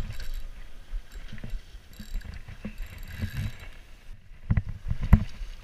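Fishing reel being cranked to bring in a hooked steelhead, with faint mechanical ticking and a few sharp knocks near the end.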